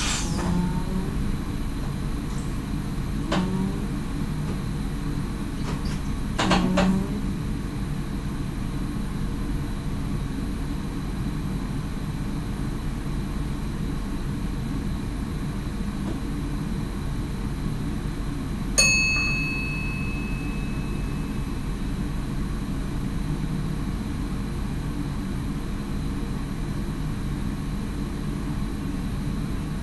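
Steady rumble in the cab of an NS SGM Sprinter electric train, with a few short knocks in the first seven seconds. About two-thirds of the way through, a single bright ding rings out and fades over about two seconds: the cab's ATB train-protection bell.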